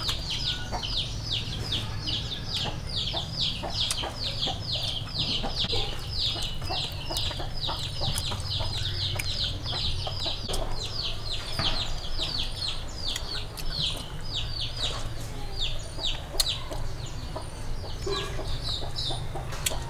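Chicks peeping nonstop: a steady string of short, high, falling peeps, about four a second.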